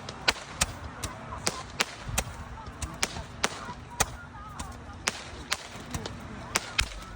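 Fireworks going off: an irregular series of sharp cracks, about two or three a second.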